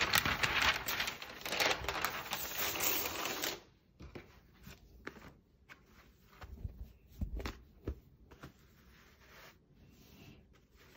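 Heat transfer vinyl being handled and peeled: a dense crinkly rustling and tearing of a plastic sheet for about three and a half seconds. After it come a few faint clicks and soft knocks.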